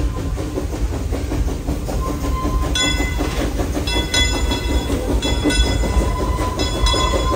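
Steam train rolling past with a steady rumble and clatter of wheels on the track. From about three seconds in, repeated high-pitched metallic squeals come in and out, roughly once a second.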